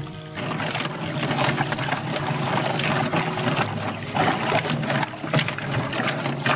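Tap water pouring into a metal pot of green-lipped mussels, splashing over the shells as hands turn and rinse them.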